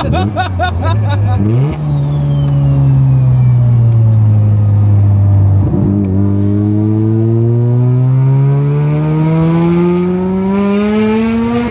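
Mazda RX-7's turbocharged 13B twin-rotor engine under way. The revs jump sharply a little under two seconds in and ease down for a few seconds. From about six seconds in they climb steadily as the car accelerates through a gear.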